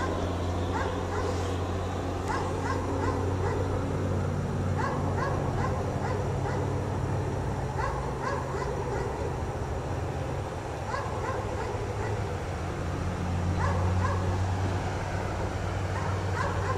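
A dog chained outside barks repeatedly in short runs of a few barks with brief pauses. Under the barking runs a steady low rumble.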